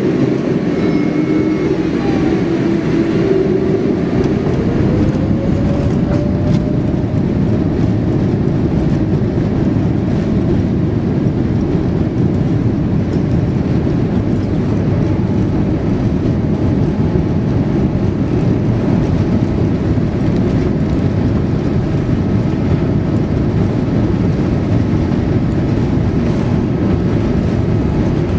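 Jet airliner's engines at takeoff power, heard from inside the cabin during the takeoff roll: a whine rises over the first few seconds as the engines spool up, then a steady loud rumble with the runway roll.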